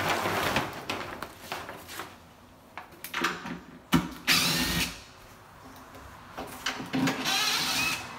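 Cordless drill running in several short bursts as it backs screws out of the wooden countertop form, with a sharp knock about four seconds in.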